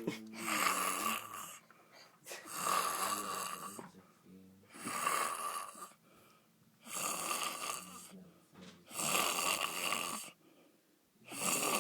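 A sleeping man snoring loudly, in long, noisy breaths about every two seconds: five in a row with short quiet gaps between, and a sixth beginning near the end.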